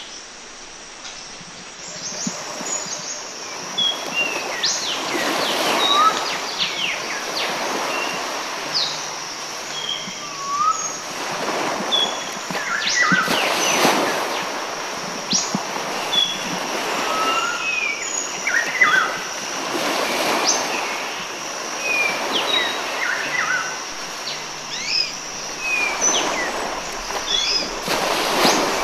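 Outdoor ambience: many birds chirping and whistling in short calls over a steady rushing wash that swells and fades every couple of seconds.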